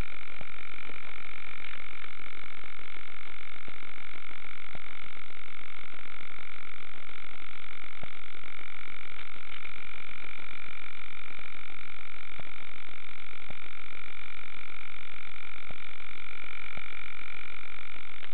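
Steady electronic whine of two held tones over hiss, with a few faint clicks, unchanging throughout: interference noise carried on the FPV video link's audio while the model helicopter sits on the ground.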